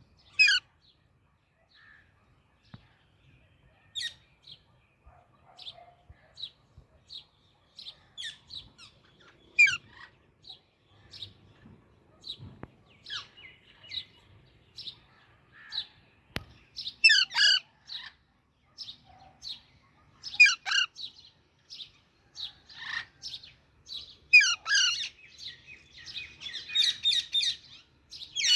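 Baby Alexandrine parakeet calling: a string of short chirps, about one or two a second, broken every few seconds by louder harsh squawks, with a denser run of chattering calls near the end.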